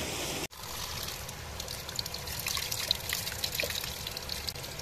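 Spring water trickling from a small pipe in a rock face and splattering over cupped hands and stones, with many small droplet splashes. About half a second in, this replaces a steady rush of flowing stream water that cuts off suddenly.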